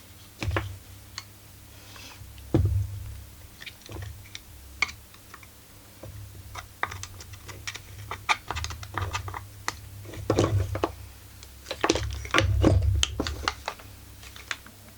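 Irregular metallic clicks, taps and knocks of hand tools and parts being worked on a chainsaw crankcase, with heavier knocks about two and a half seconds in and again near the end.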